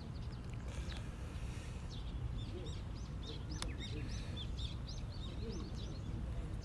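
Small birds chirping in many short, quick notes over a steady low rumble, with one sharp click a little past halfway.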